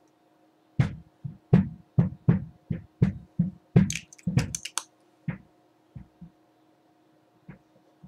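Lip gloss being applied with its wand: a quick run of short, wet smacks and clicks, about three a second for the first five seconds, then a few scattered ones.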